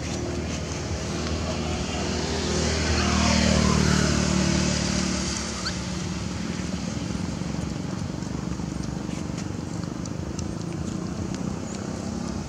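Motor vehicle engine running. It grows louder and falls in pitch as it passes about three to four seconds in, then settles to a steady hum.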